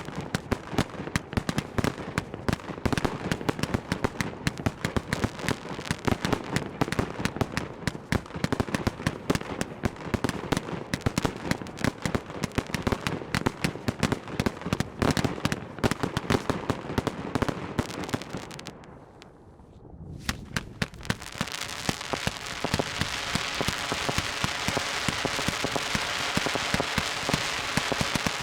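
Fireworks display: a rapid, dense string of bangs and pops, a brief lull about two-thirds through, then a steadier hiss of many small pops.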